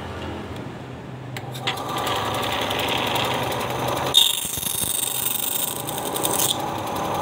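A small Ryu bandsaw with a 350-watt motor runs up after a click about a second and a half in, then runs steadily. From about four seconds in, for about two seconds, the blade cuts a piece of cardboard, adding a hiss over the running machine.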